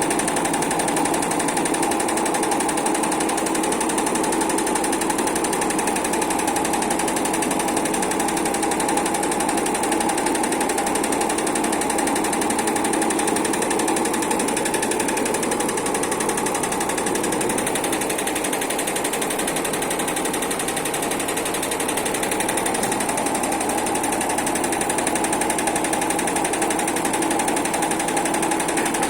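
Heating-wire sewing machine running steadily, its needle mechanism stitching with a fast, even clatter over a steady motor hum.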